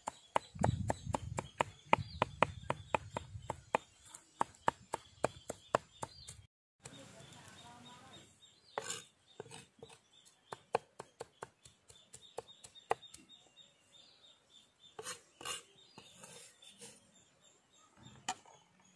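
Cleaver mincing garlic on a round wooden chopping block: quick knocks, about four or five a second, for the first six seconds, then slower, scattered chops.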